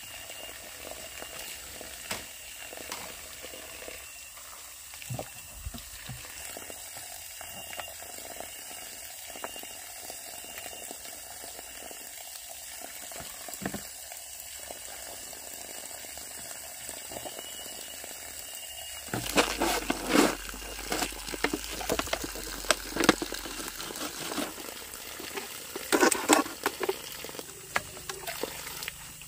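Water trickling and splashing, with louder splashes and knocks in irregular bursts in the last third.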